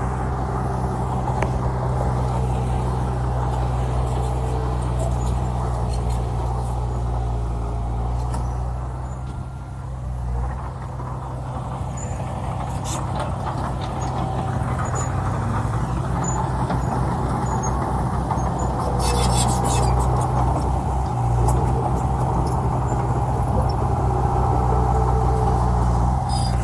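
Heavy earthmoving machinery's diesel engine running steadily. It eases off briefly about a third of the way in and runs louder again from about two-thirds in, with a short burst of metallic rattling.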